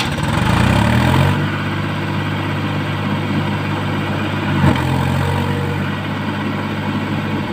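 Mahindra tractor's diesel engine revving up over the first second, then running steadily at high revs under load while the tractor sits stuck in deep mud. A brief knock about two-thirds of the way through.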